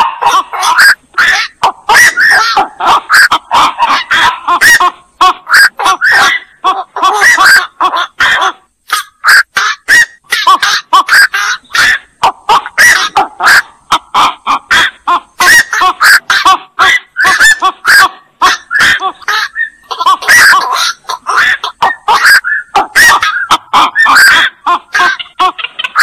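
Black-crowned night herons calling: a loud, dense run of short calls, several a second, with brief lulls about nine and twenty seconds in.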